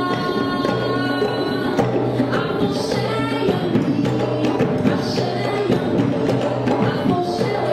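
Music with dense hand-percussion strokes over a steady low drone, with melodic lines above.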